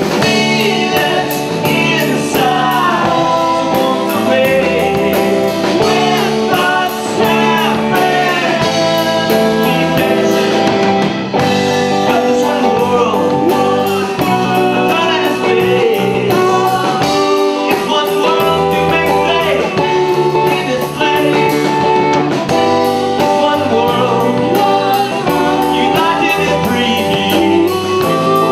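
Live rock band playing with electric guitar, bass guitar, drums and keyboard, with singing over it.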